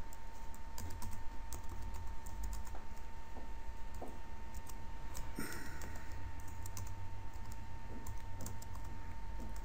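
Typing on a computer keyboard: a run of quick, irregular key clicks as an email address is entered, over a faint steady tone and low hum.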